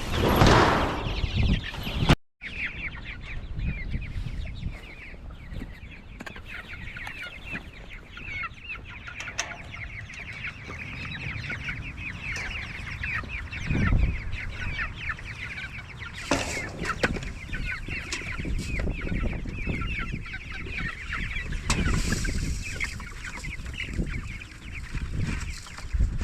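A flock of young chickens clucking and peeping, many short high calls overlapping without a break. The sound drops out for a moment about two seconds in, and there are a few dull low thumps later.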